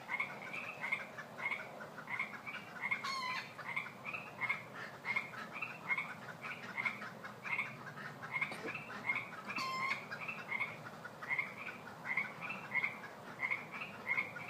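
A chorus of Pacific chorus frogs calling, many overlapping short two-part croaks repeated several times a second. Two brief, sharper sounds stand out, about three seconds in and again near ten seconds.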